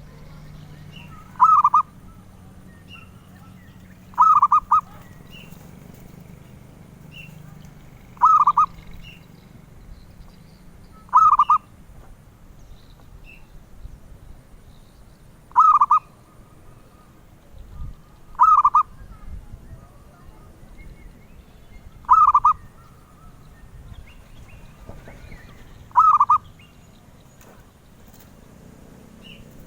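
Zebra dove (perkutut) cooing: eight short phrases of a few quick notes each, repeated every three to four seconds.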